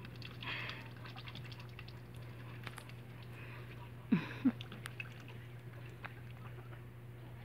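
Mallard drake dabbling its bill in a pool of water with floating greens: many small wet clicks, drips and splashes as it feeds. Two short low sounds come about four seconds in.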